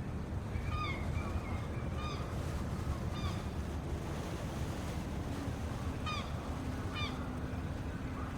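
Harbour ambience: a steady low rumble of water and wind under about five short honking bird calls, three in the first few seconds and two more near the end.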